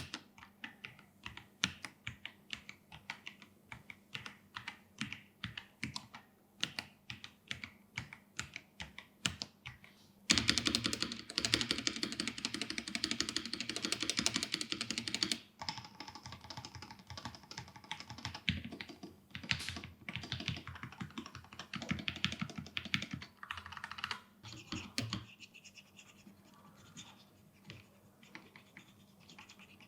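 Typing on an Akko PC75B mechanical keyboard with Akko Jelly Purple tactile switches and PBT keycaps. It starts with separate key presses at about three to four a second. About ten seconds in comes a louder burst of fast, dense typing lasting some five seconds, followed by steady typing that grows fainter near the end.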